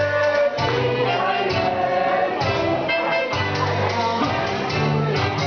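Music with singing voices over a steady bass line.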